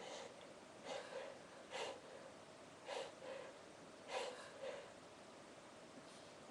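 A person sniffing hard through the nose in short noisy bursts, about seven of them, several in quick pairs about a third of a second apart.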